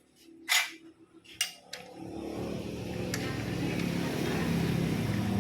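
A few sharp clicks and knocks, then a small lathe's electric motor starts and runs with a steady hum that grows gradually louder.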